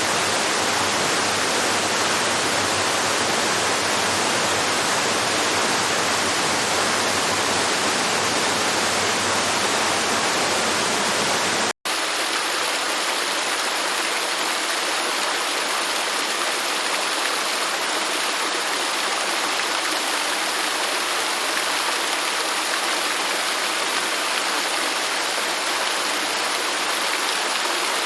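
Steady rush of flowing water. About twelve seconds in it cuts out for an instant, then comes back thinner and brighter, with less low rumble.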